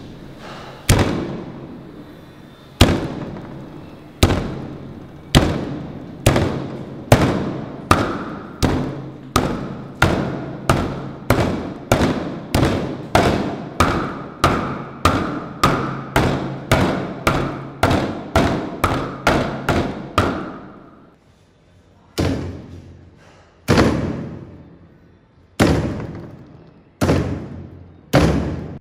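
A wooden club repeatedly smashing pea eggplants against a thick wooden chopping block: heavy thuds that ring on briefly after each strike. The strikes come slowly at first, then about two a second for a long run, then after a short pause five more spaced blows.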